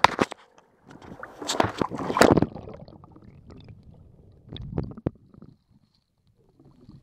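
Muffled water sloshing and gurgling, heard through a camera dipped under the water. The loudest rush comes about two seconds in and fades, a smaller swirl follows near five seconds in, and then it goes nearly quiet.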